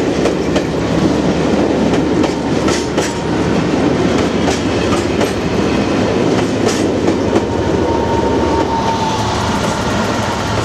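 Train running on the rails: a steady rumble with sharp clicks of the wheels over rail joints, and a faint wheel squeal about eight seconds in.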